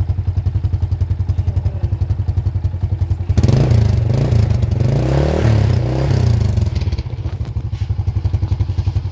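Honda Supra X motorcycle's single-cylinder four-stroke engine idling with a steady pulse at the exhaust. A little over three seconds in it is revved for about three seconds, the pitch rising and then falling, before it settles back to idle.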